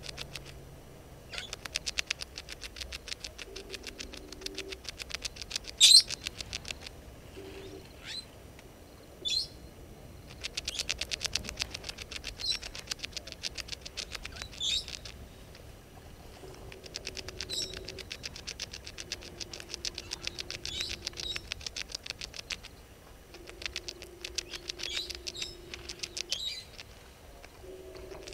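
African bush ambience: repeated bursts of rapid clicking trills, each a few seconds long, with short sharp bird calls between them. The loudest call comes about six seconds in, and a low steady hum sounds briefly in some pauses.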